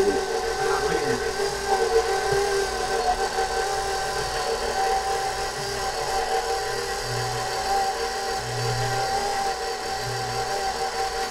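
KitchenAid stand mixer running on low, its motor a steady hum and whine as the beater whips egg-white batter. A low throb recurs about every second and a half in the latter half. The sound is turned down by a noise-reduction filter.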